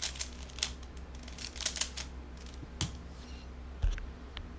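Plastic 3x3 speedcube being turned quickly through an algorithm, its layers clicking in quick runs, then a dull knock about four seconds in as the cube is set down on the mat.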